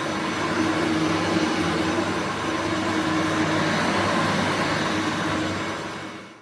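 Hoover Turbomaster upright vacuum cleaner running steadily, a loud even rush of air with a motor hum underneath. It fades over the last second and then cuts off.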